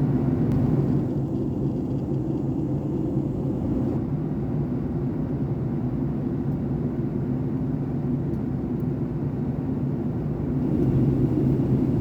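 Steady low rumble inside the cabin of a Boeing 757-200 in descent, from airflow and its Rolls-Royce RB211 engines. It eases slightly about a second in and rises again near the end.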